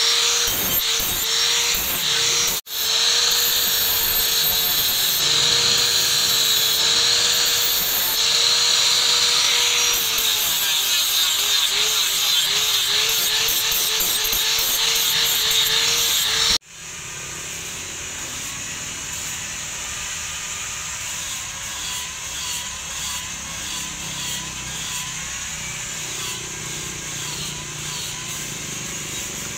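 Handheld angle grinder grinding the flat of a steel cleaver blade, its whine wavering as it is pressed into the metal, with a brief break about two and a half seconds in. It cuts off suddenly about sixteen seconds in, leaving a quieter steady outdoor background.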